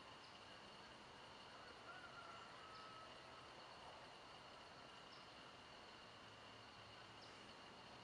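Faint insect chorus: a steady, high, continuous trill, with a short high chirp about every two seconds.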